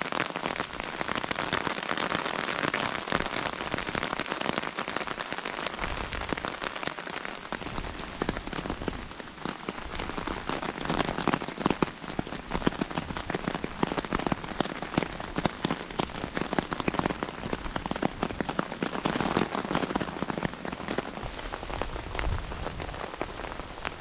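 Rain falling on a tarpaulin stretched over a hammock, heard from underneath: a steady dense hiss made of many small, sharp drop hits.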